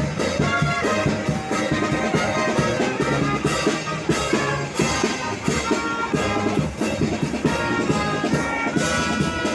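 Brass band playing a marinera norteña, with trumpets and trombones over a steady beat of percussion.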